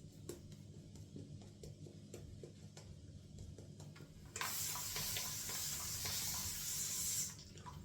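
Shaving brush working lather with soft faint clicks, then about four seconds in a water tap runs in a steady hiss for about three seconds and stops: water being added to the shaving lather.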